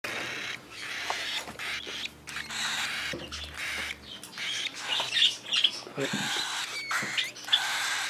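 Young lutino cockatiel making raspy, hissing begging calls in repeated bursts, with a few short chirps near the end: a hand-fed chick asking for food.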